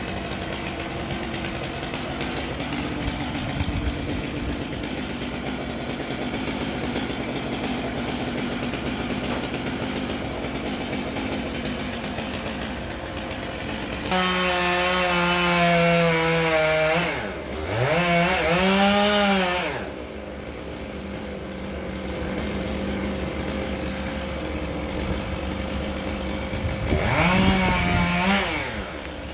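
Chainsaw idling, then run up to full throttle about halfway through. Its pitch drops sharply and recovers once in the middle of the run before it falls back to idle, and it revs up again briefly near the end, cutting a large cottonwood limb into sections.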